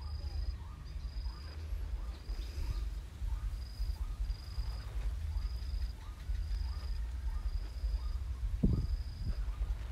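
Insects chirping in the background: a high, even chirp about half a second long repeating roughly once a second, with a shorter, lower note repeating faster, over a steady low hum. A few soft knocks near the end.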